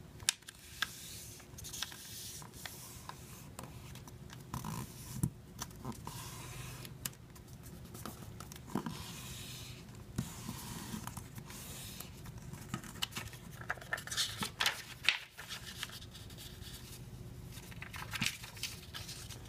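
A sheet of printed paper being folded and creased by hand against a tabletop: irregular rustling and scraping as fingers press and run along the fold lines, with small clicks and taps.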